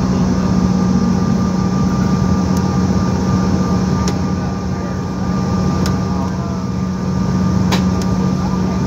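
Cabin noise inside a CRJ-700 rolling out on the runway after landing: a steady hum from its rear-mounted GE CF34 turbofans over the rumble of the wheels. A few brief clicks are heard along the way.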